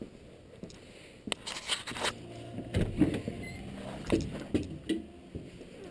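Light clicks and rattles, then footsteps thudding at a walking pace, about two a second.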